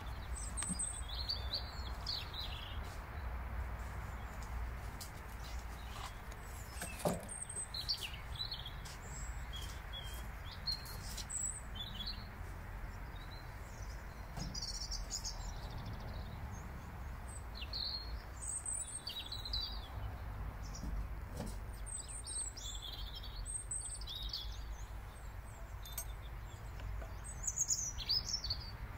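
Small songbirds chirping and singing in short, scattered calls over a steady low background rumble, with a few faint clicks.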